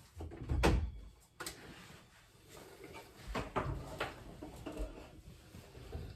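Irregular knocks, clatter and rustling of things being handled, with a heavier thump about half a second in and several quicker knocks around three and four seconds in, over a low rumble.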